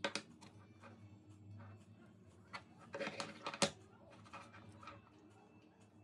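A few light clicks and taps, small hard objects handled on a desk, over a low steady hum. A sharp click comes at the start, and a cluster of clicks and knocks about three seconds in, the last one the loudest.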